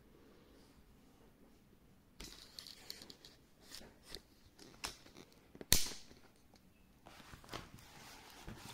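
Handling noise from hands on a diamond painting canvas and its resin drills: light rustling and scattered clicks starting about two seconds in, with one sharp click the loudest about two-thirds through.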